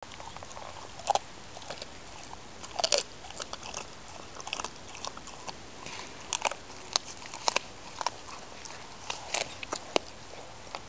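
Pit bull chewing a whole raw chicken: squishy chewing broken by irregular sharp crunches of the bones, the loudest about a second in and just before three seconds in.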